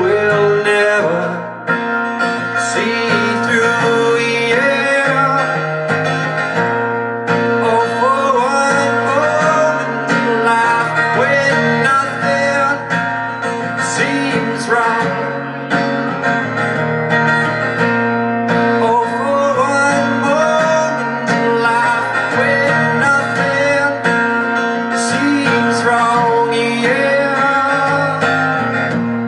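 A man singing into a microphone while strumming an acoustic guitar, a live solo song performance.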